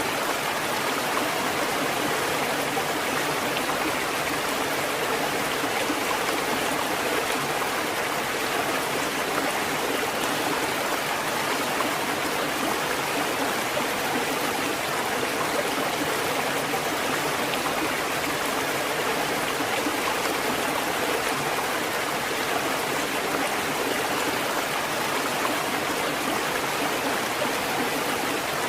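Water fountain running with a steady, even rush of water that does not change.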